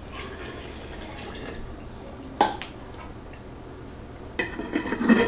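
Water poured from a measuring cup into a glass jar of dry cement mix, then a single knock as the cup is set down on the table. Near the end, clicks and scraping as the jar's metal lid is put on.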